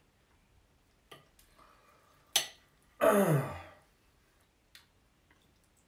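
Knife and fork clicking against a ceramic plate, a few scattered clicks with one sharp one just past two seconds in. Right after it comes the loudest sound, a short vocal sound under a second long that slides steeply down in pitch.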